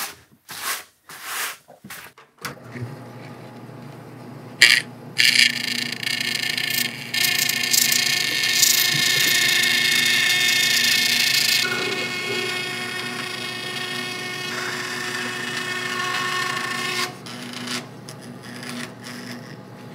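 Vertical band saw cutting a sheet of 5052 aluminum. After a few clicks the saw runs steadily. From about five seconds in a loud, high-pitched cutting sound rides over it, quieter after about twelve seconds. The cutting stops at about seventeen seconds, leaving the saw running free.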